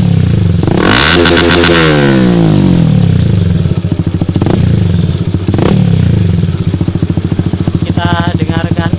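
Honda Sonic 150R's single-cylinder engine through a Sakura carbon aftermarket exhaust, snapped up from idle about a second in and held briefly against the rev limiter, then falling away. Two short blips of the throttle follow, and it settles back to idle.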